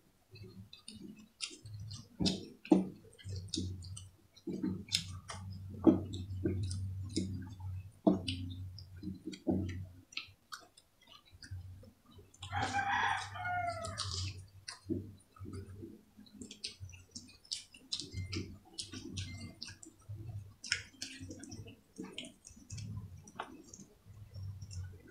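Close-up eating sounds: chewing, lip smacks and sharp mouth clicks as fried fish is eaten by hand, over a low steady hum. A rooster crows once about halfway through.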